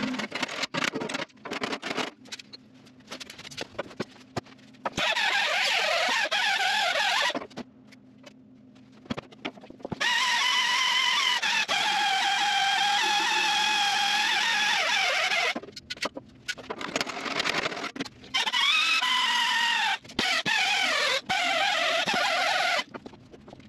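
Right-angle die grinder with a small abrasive disc grinding down fresh welds on a steel wheel arch: a high whine that starts and stops several times, its pitch sagging as the disc bites into the metal and recovering as it eases off.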